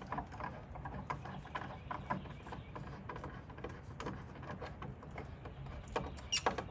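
Hand screwdriver tightening a bracket screw: small irregular clicks and creaks of the tool and screw, with a few sharper clicks about six seconds in.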